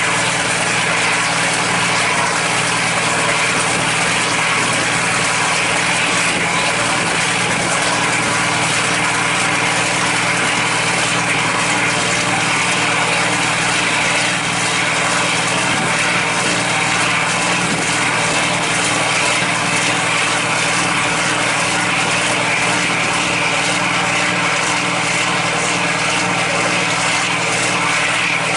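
Boat's diesel engine running steadily at constant speed: a continuous, unchanging drone.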